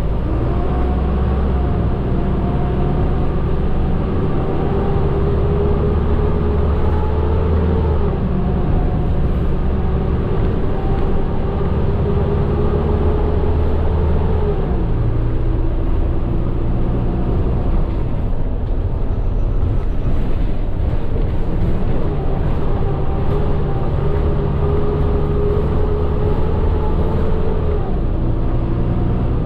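Medium bus engine and road rumble heard from inside the cabin while driving, the engine note rising slowly and dropping back about halfway through as it pulls through the gears.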